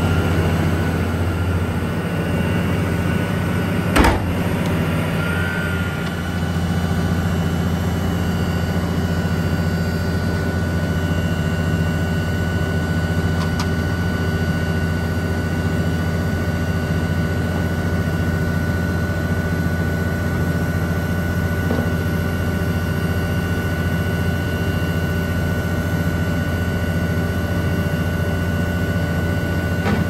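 Volvo ABG8820B asphalt paver's diesel engine running at a steady speed, with a single sharp knock about four seconds in.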